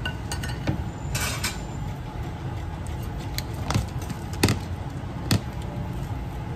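Kitchen handling sounds over a steady low rumble: a plate set down on a wooden cutting board, then a few sharp knocks and clinks of utensils, the three loudest between about three and a half and five and a half seconds in.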